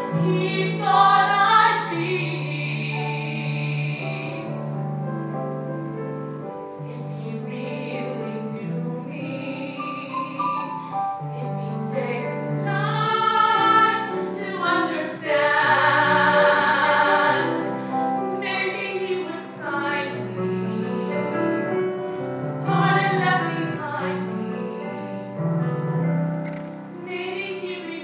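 A woman singing solo into a microphone, accompanied by a grand piano. She sings long held notes with a wavering vibrato, and the voice is loudest about halfway through.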